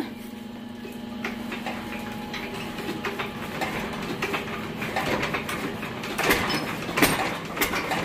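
Single-cylinder stationary diesel engine being hand-cranked to start. Sharp knocks come closer together over the last few seconds as it begins to fire.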